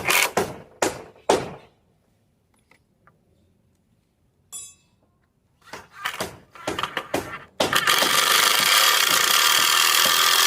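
Tool work on wood: a run of short harsh scraping strokes, a pause of a few seconds, more strokes, then a continuous harsh scraping noise from about seven and a half seconds in.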